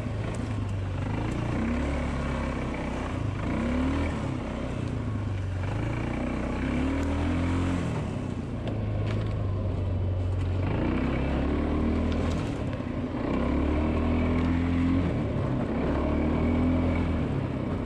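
ATV engine revving hard as the quad is ridden fast along a trail. The pitch climbs and drops back again and again, every couple of seconds, with the throttle and gear changes.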